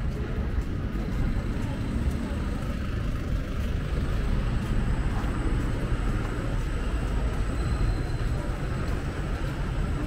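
Steady outdoor urban ambience: a continuous low rumble of road traffic with faint voices of people around.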